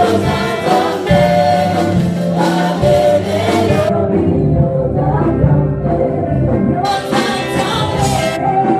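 A small gospel choir of men and women singing a worship song into microphones, a woman's voice leading, with live band accompaniment; the voices hold long notes.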